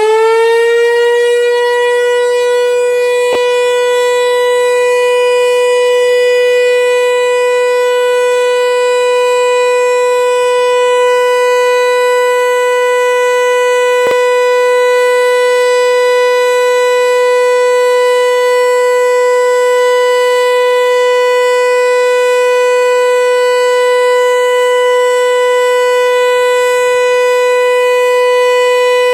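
Pneumatic high-performance civil-defence siren (HLS) sounding one steady, unwavering tone after spinning up just before. The continuous, non-wailing tone is the all-clear (Entwarnung) signal of a German siren test.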